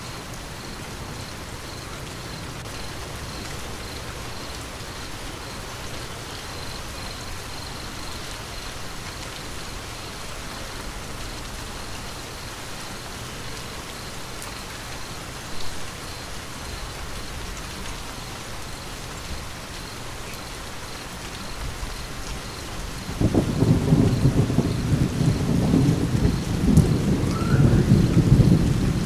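Steady rain falling. A roll of thunder breaks in loudly about three-quarters of the way through and rumbles on until just before the end.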